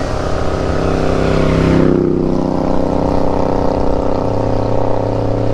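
Triumph Vitesse 2-litre straight-six engine running on the road with the top down, heard over wind rush. The engine note eases slightly over the first two seconds, as the wind noise drops, then holds steady.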